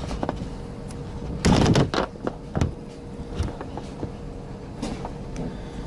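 Clicks and small knocks of crimped spade connectors being worked off the burnt power switch of a commercial deep fryer, with a quick cluster of sharp clicks about one and a half seconds in and single clicks after, over a faint steady hum.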